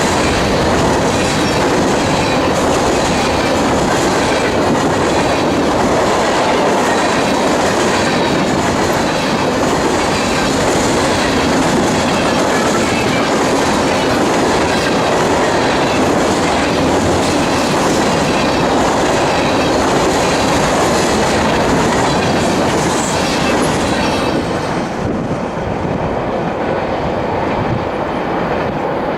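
Freight train of grain hopper cars rolling past, steel wheels clicking over the rail joints with a steady rolling noise. About 24 seconds in, the higher-pitched rail noise drops away, leaving a lower rumble.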